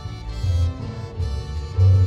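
Live danzón orchestra playing, with deep bass notes standing out about half a second in and again near the end.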